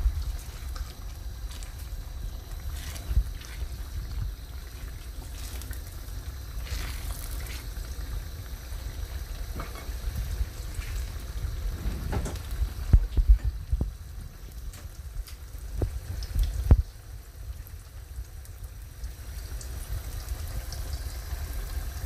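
Thick tomato stew bubbling and spitting as it fries in a stainless steel pan, with scattered pops and a few sharp knocks, the loudest a little past halfway, over a low rumble.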